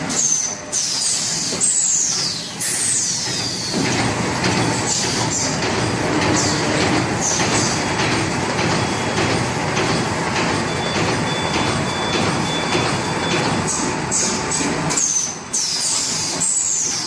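Plastic bag making machines running: a steady mechanical clatter and hiss, with clusters of short high squeals falling in pitch near the start and again near the end.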